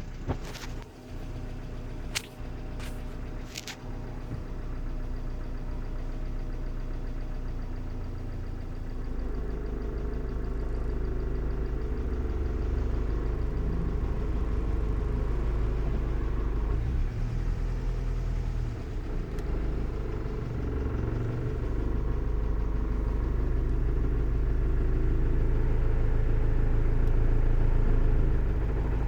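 Honda Civic EJ9 running, with a noise its owner finds strange. A few sharp clicks come in the first four seconds, then the low engine sound gets louder about nine seconds in and keeps rising slowly toward the end.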